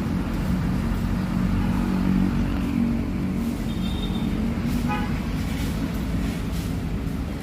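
Steady road traffic rumble, with a short horn toot about five seconds in.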